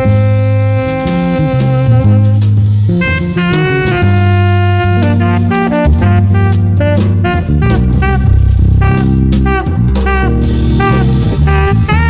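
Instrumental jazz: a saxophone plays a melody with scooped and bent notes over drum kit and bass.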